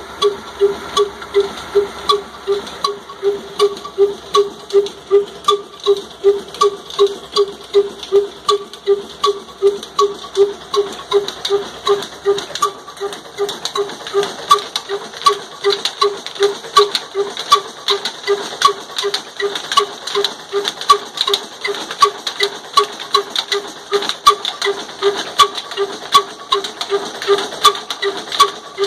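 Old single-cylinder desi diesel engine of the Ruston Hornsby type running steadily under load while it drives a chakki flour mill. Its exhaust beats evenly at about two strokes a second.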